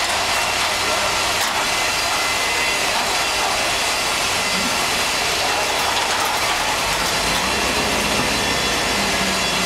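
Mobile crane's engine and hydraulics running steadily while it holds the load: a constant mechanical din with a faint high whine in it.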